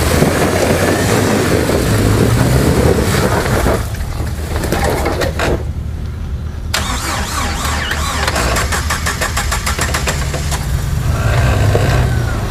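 Jeep Wrangler TJ's engine running at low revs as it crawls over a rutted dirt trail. It drops quieter in the middle and picks up again near the end.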